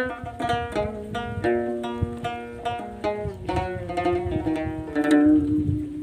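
Solo Moroccan lotar, the Amazigh skin-topped lute, plucked in an improvised taqasim: a quick run of single notes, then a last note about five seconds in that rings on and fades.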